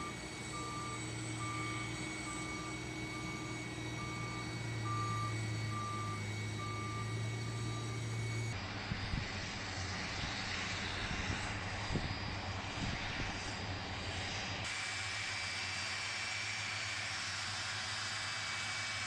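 Boeing 747 jet engines running, with a steady noise and a high whine. For the first few seconds a beep repeats a little more than once a second. The engine sound changes abruptly twice, as if cut between different shots.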